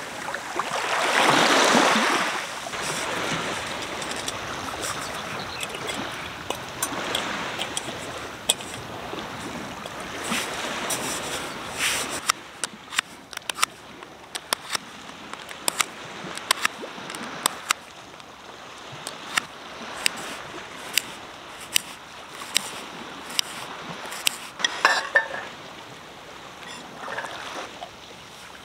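Sea waves washing onto the beach, swelling and ebbing, with many sharp clicks and knocks through the second half.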